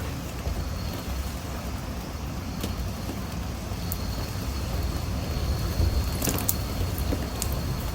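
Typhoon wind and rain: a steady low rumble of gusting wind buffeting the microphone, with a few sharp raindrop hits about six seconds in.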